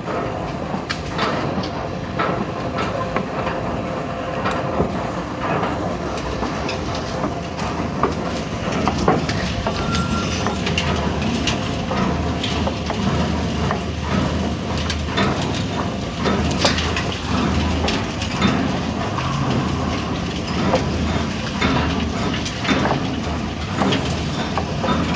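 A machine running steadily with a low rumble and frequent irregular clicks and knocks.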